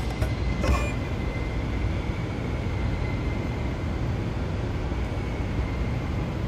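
Yanmar G900is portable inverter generator running steadily, a low even engine rumble with a faint high whine.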